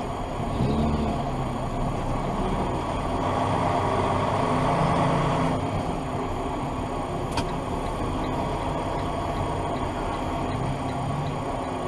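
Car running, heard from inside the cabin: steady engine and road noise, with a single sharp click about seven and a half seconds in.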